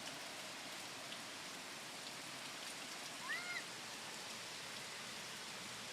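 Steady tropical-storm rain coming down hard, an even hiss of falling water. A brief faint distant call rises and falls about three seconds in.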